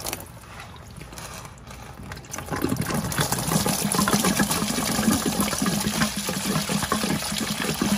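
Green engine coolant draining out of a disconnected coolant hose and splashing into a drain pan. It starts as a trickle and swells to a steady gush about two and a half seconds in.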